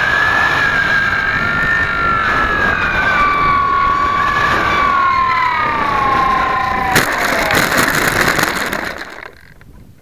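Onboard sound of a radio-controlled model airplane's motor whining, its pitch falling slowly as the plane flies low over the ground. About seven seconds in a sharp knock and a rush of scraping noise mark the touchdown in dry grass, then the sound drops away as the plane comes to rest.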